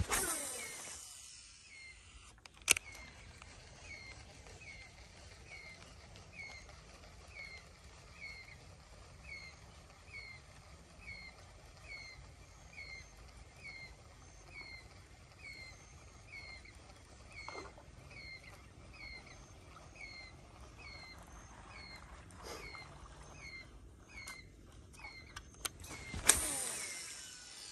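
An animal calling in short, falling chirps repeated about one and a half times a second. A loud rushing swish comes at the very start and another near the end, with a sharp click just under three seconds in.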